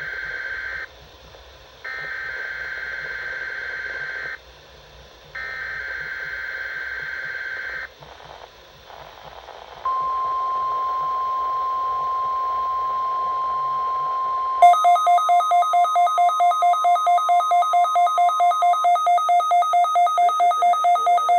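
NOAA Weather Radio required weekly test signal: three bursts of screechy SAME digital header data, then about ten seconds in the steady 1050 Hz warning alarm tone. A few seconds later a pulsing electronic alarm starts over it, about four beeps a second, and carries on after the steady tone stops.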